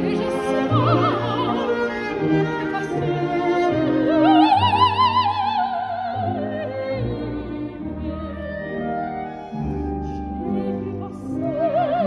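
Operatic soprano singing with wide vibrato over a symphony orchestra, the bowed strings carrying the accompaniment. About four seconds in her voice swells into a long high phrase that slowly falls away.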